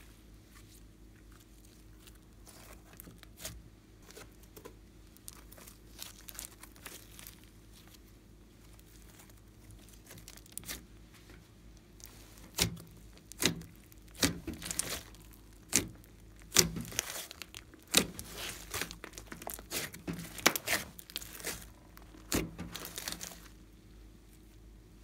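Hands pressing and squishing glossy slime: soft crackles at first, then from about halfway a quick run of loud, sharp pops and clicks as trapped air bursts out of the slime, which stops shortly before the end.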